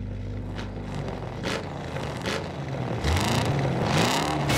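Cartoon sound effects of a truck engine revving up and down, with scraping and clattering as a monster truck drives over a pile of scrap metal. It follows a soft held music chord that fades in the first second.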